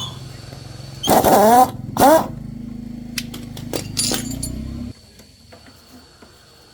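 A motorcycle engine running with a few short throttle blips that rise and fall in pitch, then shut off suddenly about five seconds in. A few sharp metallic clicks come just before it stops.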